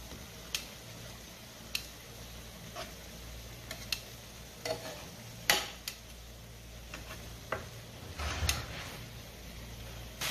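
Metal tongs clicking and scraping against a ridged grill pan as chicken, potato and onion slices are turned, about a dozen light sharp clicks spread out, the loudest about five and a half seconds in, over a quiet sizzle.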